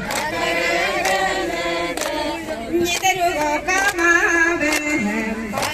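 A group of voices singing a chant together, a Galo dance song, with several voices sounding at once.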